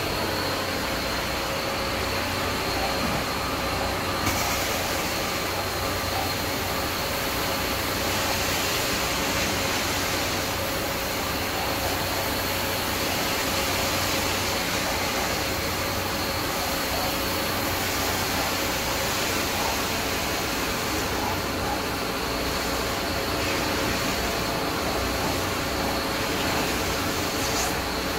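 Carpet extraction machine running steadily: a high vacuum-motor whine over a constant rush of suction air. The rush brightens and dulls a few times.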